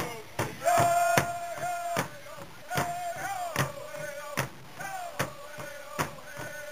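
Powwow drum group striking a large shared hand drum in a steady beat, about two and a half strikes a second, while singing in long, high held notes that come in loudest about a second in.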